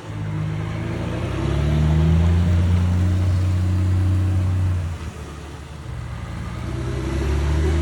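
Volvo FH truck's diesel engine rumbling through its exhaust as it is driven, the deep note swelling loud for the first few seconds, falling away about five seconds in, then building again near the end.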